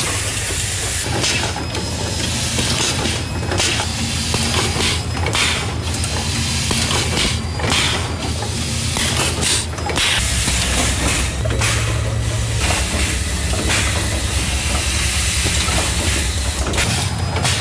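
Automatic assembly machine running: a steady low hum with repeated short hisses and clacks from its pneumatic actuators, coming irregularly about once a second.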